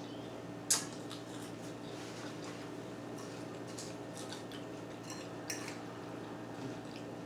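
Metal fork clinking against a salad bowl and plate while eating, with one sharp clink a little under a second in and a lighter one later, over a steady low hum.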